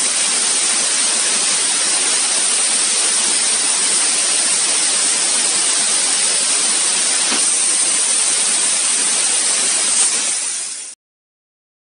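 Steady hiss of a CO2 laser cutter at work on wood, mostly the air-assist nozzle on the cutting head blowing air at the cut, with the machine's fans under it. It cuts off abruptly near the end.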